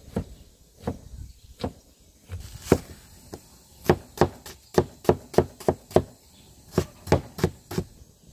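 A kitchen knife slicing an onion and striking a wooden cutting board. A few spaced strokes come first, then from about four seconds in a run of about three strokes a second.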